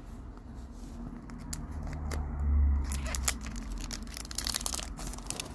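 Card pack wrappers being handled and torn open: irregular crinkling and tearing, with a dull low bump about two and a half seconds in.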